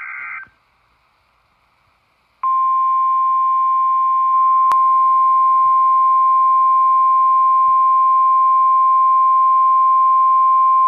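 Midland NOAA weather radio sounding the 1050 Hz warning alarm tone: a single steady, loud tone that starts about two seconds in and holds for about nine seconds, signalling that a warning broadcast follows. At the very start a short burst of the digital SAME header tones cuts off, and a single click falls in the middle of the tone.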